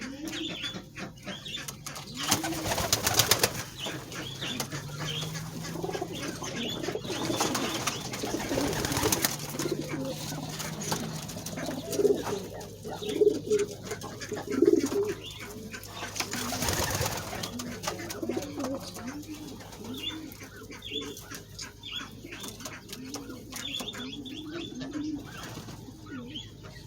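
Pigeons cooing over and over, the low rolling coos overlapping, with three short loud bursts of wing flapping.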